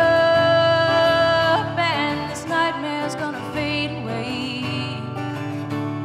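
Woman singing with acoustic guitar accompaniment. She holds the sung word "up" for about a second and a half, then carries on with further sung phrases over the guitar chords.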